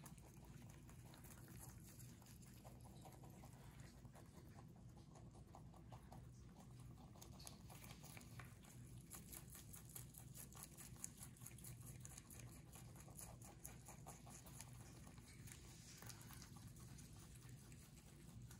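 Two rabbits chewing dandelion leaves: faint, rapid crunching, many small crunches a second, busiest in the middle of the stretch.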